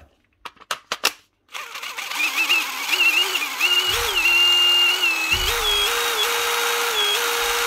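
A few clicks as a battery is snapped onto a DeWalt 18V XR brushless impact driver, then its motor starts about a second and a half in and runs without load. The whine steps up and down in pitch unevenly instead of holding a steady speed, a fault put down to the trigger switch.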